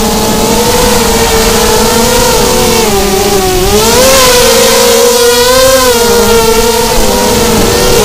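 A miniquad's brushless motors and propellers whine, the pitch sliding up and down as the throttle changes, with the wind rushing over the quad's onboard camera microphone. The whine dips a little after three seconds and climbs again about a second later.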